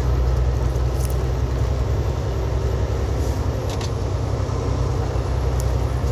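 Semi-truck's diesel engine droning steadily with tyre noise on wet pavement, heard inside the cab while driving. A few faint ticks sound over it.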